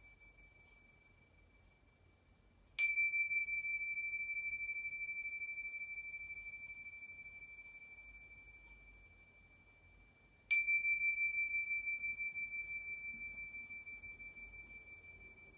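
Tingsha, small hand cymbals on a cord, struck twice about eight seconds apart. Each strike rings out a single high, clear tone that pulses slightly as it slowly fades.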